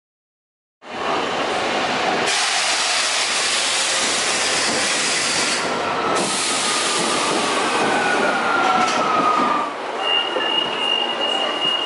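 Metro train arriving at an underground station: a steady rush of rail noise with faint falling whines as it slows, then a high steady tone near the end.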